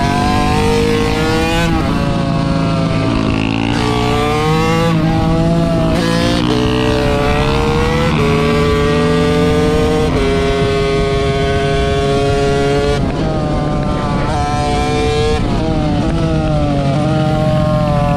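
Small-displacement motorcycle engine under way, its revs climbing and dropping repeatedly and holding steady for a few seconds about halfway through.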